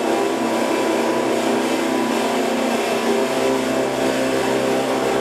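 Electric guitar played through effects as a dense, sustained noise drone: many steady tones stacked over a bright hiss, with no beat and no melody.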